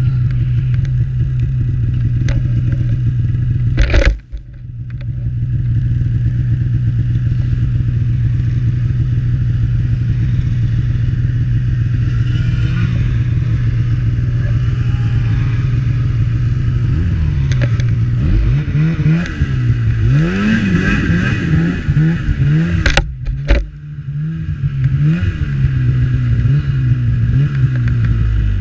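Snowmobile engine running at a steady speed, with a sharp knock about four seconds in. In the second half its pitch rises and falls again and again as the throttle is opened and eased off, with a short dropout a few seconds before the end.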